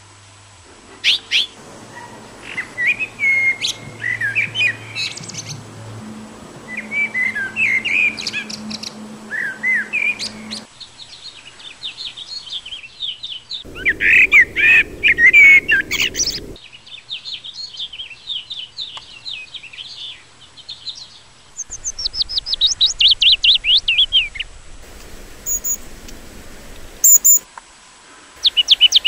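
Garden songbirds singing and chirping in a series of short passages that change abruptly. The passages include warbled whistled phrases, a loud burst of song midway, and a fast run of quick falling notes later on.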